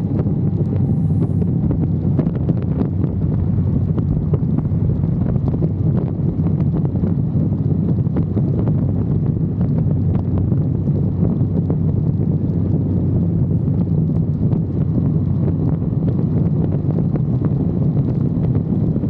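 Steady wind rush on the microphone of a camera riding on a moving KTM 390 Adventure motorcycle, with a low, even drone underneath.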